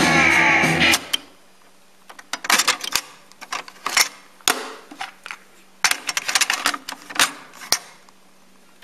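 Rock music from a Fisher CD-4020 cassette deck cuts off about a second in. Then comes an irregular run of plastic clicks and clunks as a cassette is handled and swapped and the deck's piano-key transport buttons are worked.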